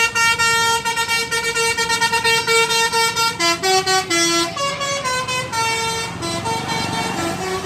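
A bus's basuri telolet horn playing a tune: a run of bright horn notes stepping up and down in pitch, a few notes a second, louder in the first half and softer and lower after about three and a half seconds.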